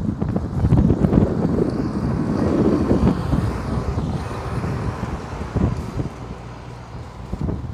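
Wind buffeting the microphone over the sound of road traffic, a loud uneven rumble that eases a little after the middle.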